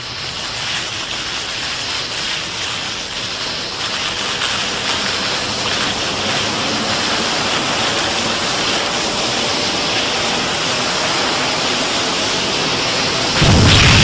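Godzilla's atomic breath sound effect: a rushing hiss that swells steadily louder as the breath charges, then a sudden deep blast of the beam firing near the end.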